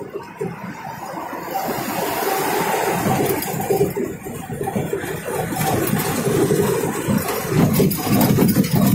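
Highway traffic noise: engines and tyres of trucks driving close alongside on a toll road, growing louder over the first two seconds or so and then holding.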